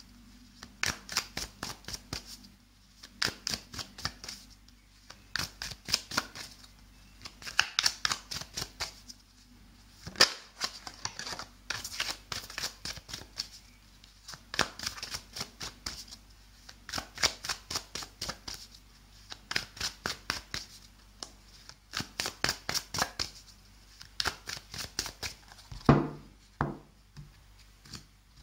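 Tarot deck being shuffled by hand: the card edges flick past each other in short runs of rapid clicks, with brief pauses between runs. Near the end a louder knock as a pile of cards is set down on the table.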